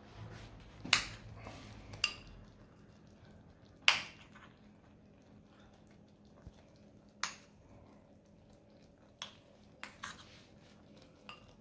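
Metal spoon clinking against a small ceramic bowl and the pan as butter is scooped out and dropped into a risotto pan: about seven separate sharp clinks spread out, the loudest about a second in and about four seconds in.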